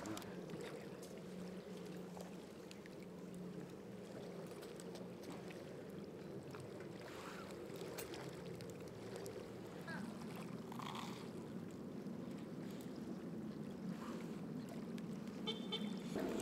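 Faint crackling of a small wood fire under a wire grill basket, a few scattered light clicks over a steady low rumble.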